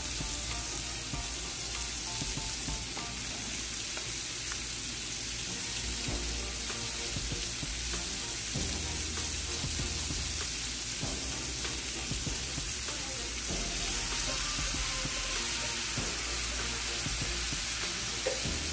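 Cubed squash, onion and Anaheim pepper sizzling in margarine in a skillet over medium-high heat: a steady frying hiss with fine crackles.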